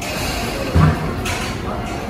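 Railway station platform noise with a train standing at the platform, broken by a single low thump a little under a second in.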